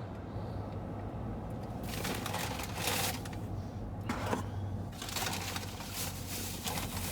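Paper takeout bag and cardboard food boxes rustling and crinkling as a fast-food order is unpacked, in several bursts starting about two seconds in, over a low steady hum.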